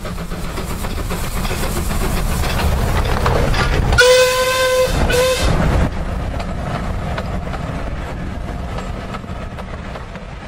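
Train of wagons running by: a steady rumble and clickety-clack that builds toward the middle and slowly fades, with a whistle blown about four seconds in, one long blast followed by a short one.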